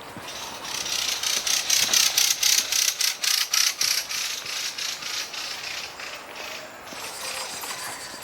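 Rapid, even mechanical ticking like a ratchet, about six ticks a second. It swells to its loudest a couple of seconds in, then fades, the ticks slowing slightly.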